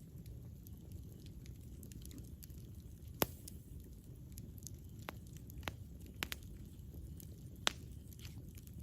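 Campfire burning: a low steady rumble of flames with scattered sharp crackles and pops of wood, the loudest snaps about three seconds in and near the end.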